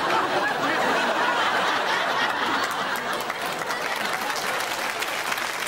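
Studio audience laughing, with scattered clapping building into applause from about halfway through.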